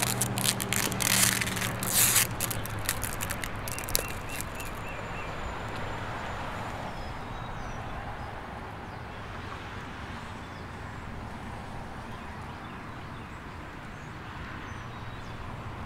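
Outdoor street ambience: a steady hush of distant traffic, with a few faint bird chirps. In the first few seconds there is a loud run of crackling, rustling noises that stops about five seconds in.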